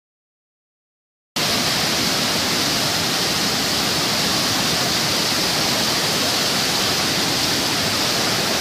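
Steady, loud rush of a flooded river's torrent, starting abruptly about a second in after silence.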